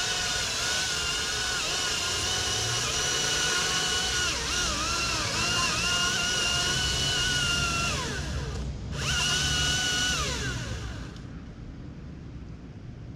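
Chainsaw running at full throttle and cutting through wood, its pitch sagging under load. It is let off about eight seconds in, revs up again briefly, then winds down and stops.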